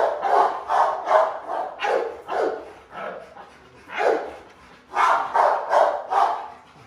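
American Bully dog barking in quick runs of short barks, about three a second, with pauses between the runs.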